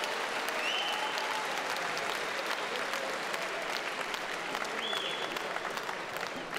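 Audience applauding steadily, with a couple of brief high-pitched calls from the crowd, one about a second in and another about five seconds in.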